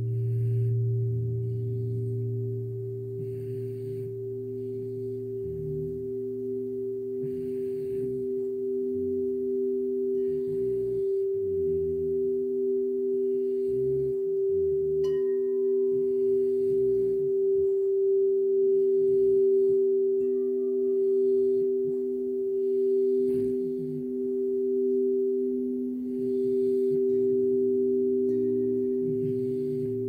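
Crystal singing bowls ringing together in several long, steady tones, the sound slowly swelling and ebbing every few seconds.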